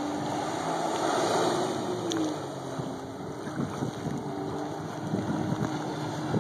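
2005 Sea-Doo RXT personal watercraft running at speed across the water, its engine note sliding down in pitch about two seconds in. Wind buffets the microphone, more so in the second half.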